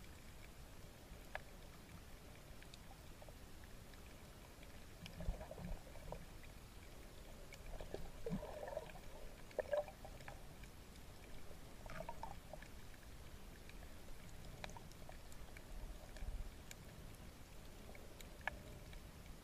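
Faint underwater ambience picked up by a GoPro Hero3 in its waterproof housing: a steady low rumble with scattered small clicks, and a few louder bubbling water sounds around the middle.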